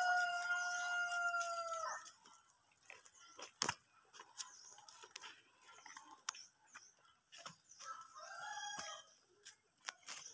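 A rooster crowing: one long, held call that falls slightly at its end and stops about two seconds in. A sharp knock follows, then a shorter, fainter call about eight seconds in.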